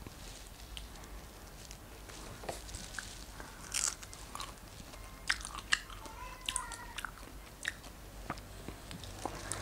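A person biting into and chewing fresh strawberries: a run of short, sharp mouth clicks, the loudest a little under four seconds in.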